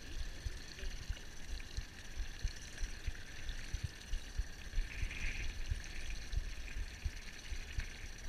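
Wind buffeting the microphone in irregular low gusts, over a steady wash of choppy water lapping against a small boat.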